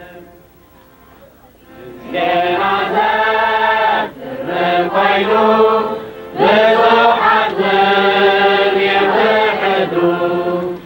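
A group of voices chanting a religious hymn in long held notes, coming in faintly and rising to full strength about two seconds in, with short breaks between phrases.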